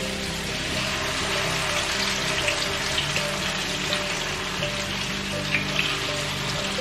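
Marinated chicken pieces sizzling in hot oil in a frying pan as more pieces are laid in, with a steady hiss and scattered pops of spitting oil.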